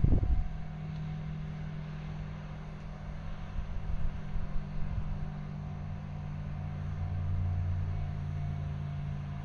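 ED75 AC electric locomotive running slowly with a steady low electrical hum over a rumble, the rumble swelling deeper about seven seconds in.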